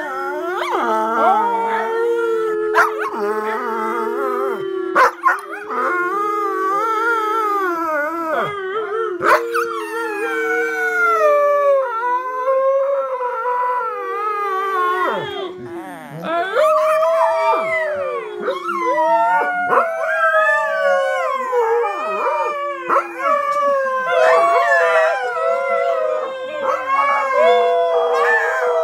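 Several dogs howling together in a drawn-out chorus, their overlapping voices sliding up and down in pitch.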